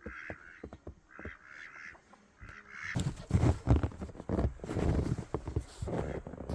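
Ducks quacking, a string of short calls in the first half. From about three seconds in, a louder run of thuds and scuffs takes over.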